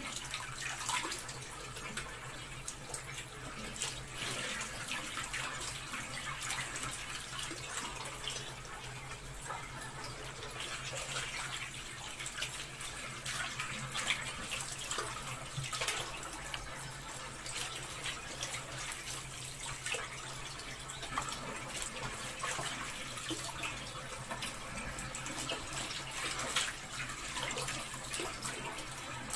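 Tap water running steadily into a metal cooking pot, splashing over the pieces of meat inside.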